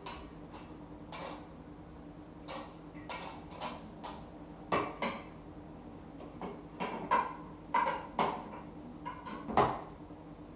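Kitchenware clattering: irregular clinks and knocks of dishes, pots and utensils, some ringing briefly, the loudest in the second half.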